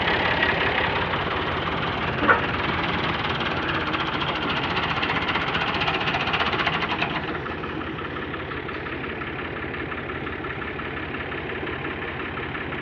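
Massey Ferguson 385 tractor's diesel engine running steadily while hitched behind a loaded trolley bogged in sand. It is louder for the first seven seconds or so, then eases off a little. There is one sharp click about two seconds in.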